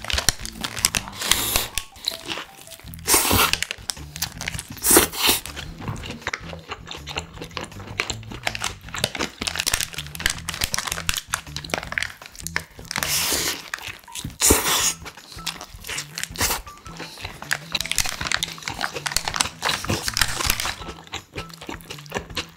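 Close-up eating of an Isaac Toast ham-and-egg toast sandwich: crunchy bites into the toasted bread and chewing, with the paper wrapper crinkling in the hands. Several loud bites stand out, about a second and a half in, around three and five seconds in, and twice near the middle, over steady background music.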